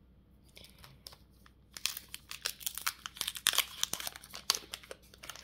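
Foil wrapper of a Pokémon booster pack crinkling and tearing as it is opened: a few faint taps, then a dense crackle from about two seconds in.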